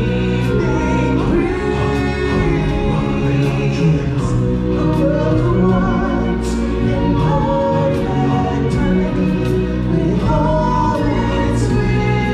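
A choir of voices singing a song over accompanying music, from a live stage show.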